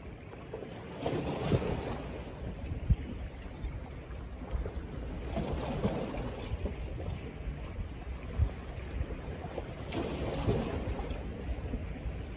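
Wind buffeting the microphone in a steady low rumble, with small sea waves washing against shore rocks three times, about every four to five seconds.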